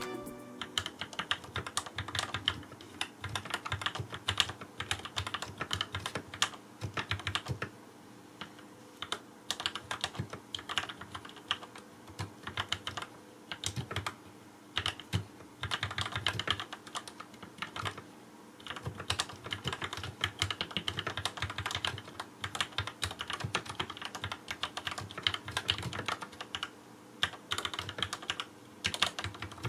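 Typing on a Cherry G81-1800 keyboard retrofitted with lubed Gateron Yellow linear switches on a stainless steel plate: fast, continuous keystrokes with a few brief pauses.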